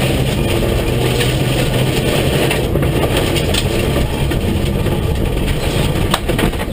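Rally car engine running hard, heard inside the stripped cabin, over a steady rush of tyres and gravel on the loose road. Near the end come several sharp knocks and the engine note briefly drops as the car runs off the road.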